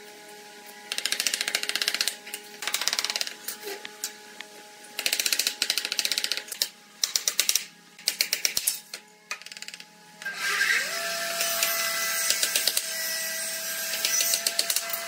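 Claw hammer driving nails into pallet wood boards, in several bursts of quick repeated blows, almost without a break in the last few seconds.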